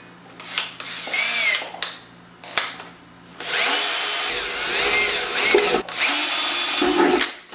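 Power drill cutting holes in a steel ammo can, run in several bursts with the motor's whine rising and falling as the trigger is worked, the longest about halfway through.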